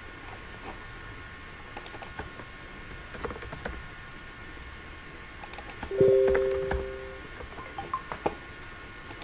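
Computer keyboard typing in short bursts of key clicks. About six seconds in, a steady two-tone electronic beep sounds for just over a second, louder than the typing.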